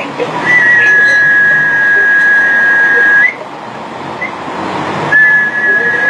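A high, steady whistle tone held for about three seconds, ending with a short upward flick. After a pause of about two seconds it starts again.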